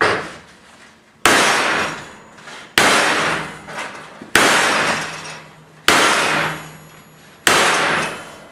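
Hand hammer striking a tacked-down steel T-joint weld test piece to break its water-quenched fillet weld apart: six ringing metal clangs about a second and a half apart, each dying away before the next.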